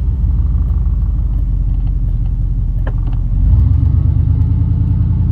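Truck engine and road rumble while driving, heard from inside the cab; the engine gets louder about three and a half seconds in, as when accelerating.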